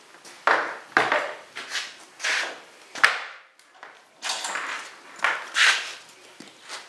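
Handling noises as a portable bandsaw and its power cord are moved into place over steel tubing: a series of scrapes and rustles, with sharp knocks about one and three seconds in. The saw's motor is not running.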